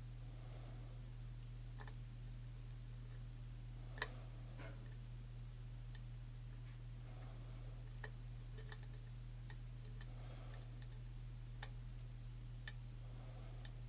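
Lock pick and tension tool clicking faintly and irregularly against the pins of a challenge lock during slow picking, with one louder click about four seconds in. A steady low hum runs underneath.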